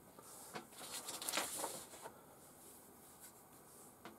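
Faint rustling and a few light clicks of small parts being handled on a workbench, mostly in the first two seconds, then quiet room tone.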